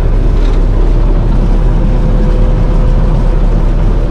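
New Holland 5050 combine harvester running steadily while cutting and threshing wheat. A dense engine and machinery drone with a faint steady whine.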